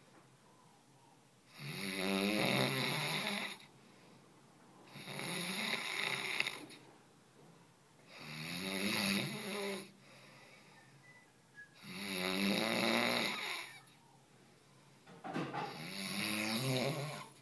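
Snoring: five long snores, each about two seconds, coming one every three and a half seconds or so with quiet breaths between.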